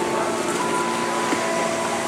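Steady hiss of heavy rain, with a steady hum and a few held higher tones over it that change pitch about half a second in.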